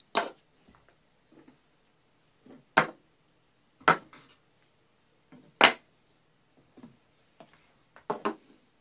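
Hollow 3D-printed ABS plastic battery holders being set down one at a time on a wooden tabletop: a series of sharp plastic-on-wood clacks, about six over the stretch, with a quick double knock near the end.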